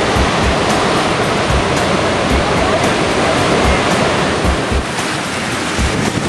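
Missouri River floodwater churning and rushing out of a dam's open spillway gates, a steady wash of water noise. Background music with short low beats plays underneath.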